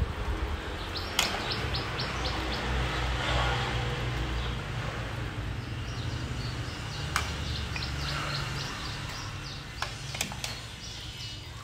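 A metal ladle stirring chicken in a stainless-steel pot, with a few sharp clinks against the pot, the last three close together near the end. Over it a small bird chirps in two quick runs of short high notes, over a low steady hum.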